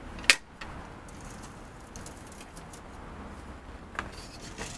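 Cactus and succulent potting soil tipped from a metal bucket into a terracotta pot: one sharp metallic clank of the bucket just after the start, then faint rustling with a couple of light taps.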